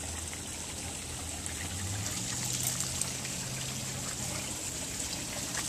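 Steady trickle of running water in a goldfish pond, with a faint low hum beneath it for a couple of seconds in the middle.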